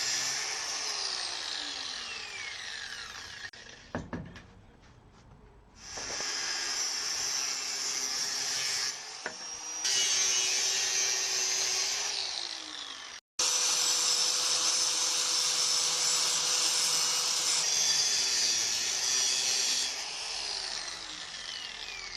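Black and Decker G 720 angle grinder running at full speed with a high whine, in several separate runs. Three times the motor is switched off and winds down with falling pitch, near the start, around the middle and near the end.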